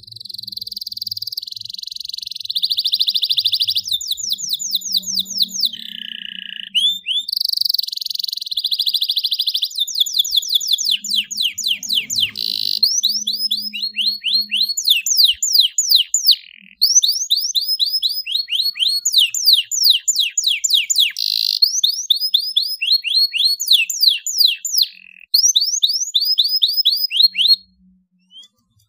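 Domestic canary singing a long song of buzzy rolls and rapid trills of quick descending notes, with only brief breaks; it stops shortly before the end.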